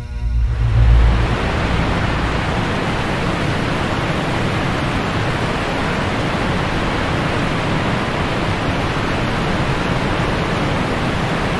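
Steady rushing noise of moving river water.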